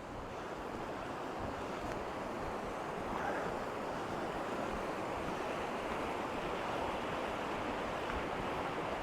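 Waterfall rushing steadily: an even, constant noise of falling water, swelling in over the first second.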